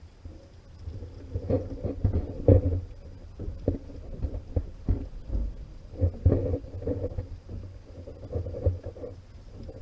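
Muffled, irregular knocks and low rumbling, the dull sound of a camera in a sealed waterproof housing being moved and buffeted.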